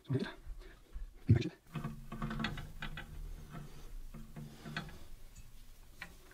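Hand-fitting of small hardware on a CNC carriage plate: two dull knocks in the first second and a half, the second the loudest, then light metal clicks and rattles of bolts, spacers and shims being fiddled into place. A low hum runs underneath through the middle.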